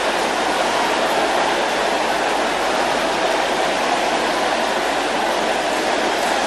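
A large congregation praying aloud all at once, many voices blending into one steady wash of sound with no single voice standing out.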